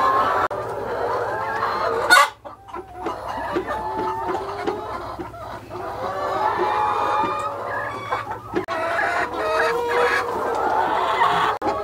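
A flock of laying hens clucking, many short calls overlapping at once. A sharp click and a brief dip in the sound come about two seconds in.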